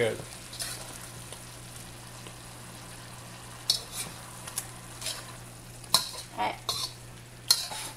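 Chicken adobo sizzling in a wok while a metal slotted spoon stirs it, the spoon scraping and clinking against the pan several times in the second half.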